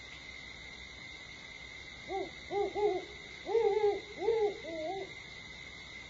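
Great horned owl hooting: a series of about six low hoots over three seconds, starting about two seconds in, the fourth hoot drawn out longest.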